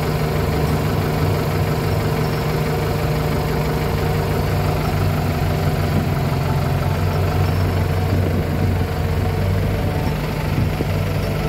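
Kubota M9540 tractor's diesel engine running steadily, heard from the operator's seat.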